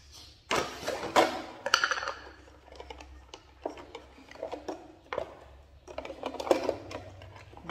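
Hands rummaging in a clear plastic jar of grooming tools: irregular clinks and rattles of metal nail clippers and plastic items against the jar, busiest in the first two seconds, then scattered clicks.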